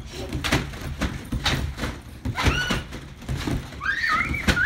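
Children bouncing on a wet trampoline: the mat thumps with each landing, about two a second. A child squeals briefly midway and again near the end.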